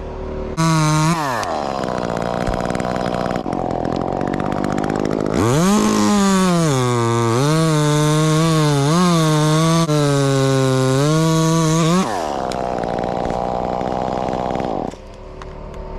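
Chainsaw revving briefly, idling, then held at full throttle for about six seconds with the pitch dipping and wavering as it cuts through wood, before dropping back to idle.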